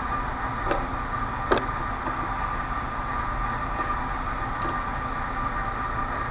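Steady background hum with a faint high whine. Two sharp metal clicks, one just under a second in and one about a second and a half in, as a padlock is clamped in a vise.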